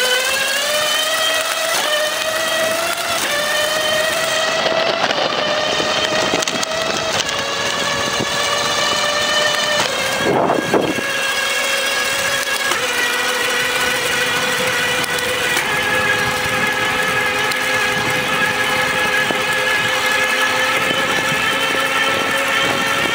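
Electric bike motor whining at full throttle, climbing in pitch over the first few seconds as the bike speeds up, then holding a steady high whine with small shifts in pitch. A brief rush of wind or rolling noise comes about ten seconds in.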